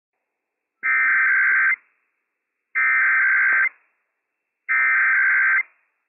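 Emergency Alert System SAME header on NOAA Weather Radio opening a Required Weekly Test: three bursts of two-pitch digital data tones, each a little under a second long, about a second apart.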